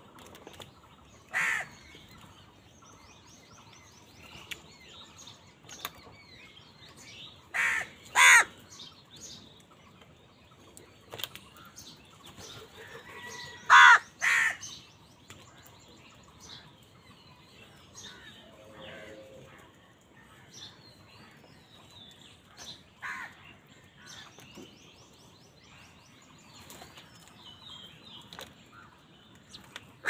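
House crows cawing while feeding: a few short caws, the loudest coming in pairs around 8 and 14 seconds in, with single caws early and near the end. Faint high chirping of small birds runs underneath.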